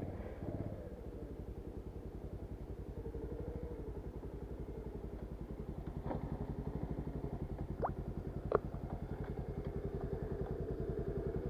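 Motorcycle engine running at low, steady revs with an even, rapid pulse, with a few short sharp clicks about six and eight seconds in.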